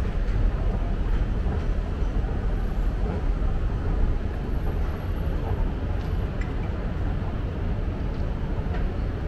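Moving escalator running with a steady low rumble.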